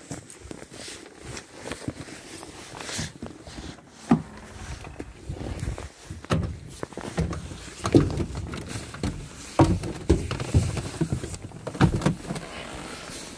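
Footsteps in snow, then irregular knocks and thumps of someone climbing into the cab of a Sisu SM 300 truck.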